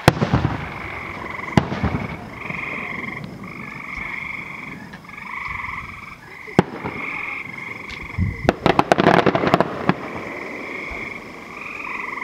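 Fireworks at a distance: a sharp bang at the start, another about a second and a half in, one more at about six and a half seconds, and a dense run of crackling reports from about eight and a half to nearly ten seconds. Frogs call steadily underneath, short calls repeated about once a second.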